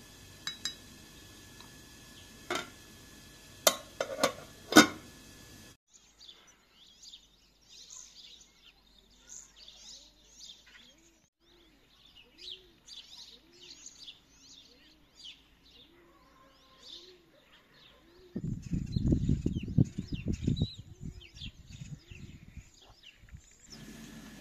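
A few sharp knocks and clinks, then small birds chirping, with a lower call repeating under them about once a second. A loud low rumble lasts for a few seconds late on.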